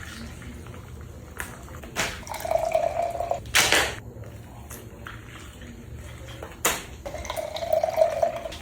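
Liquid poured into a container twice, each pour a steady stream lasting about a second, with short knocks before and after each pour.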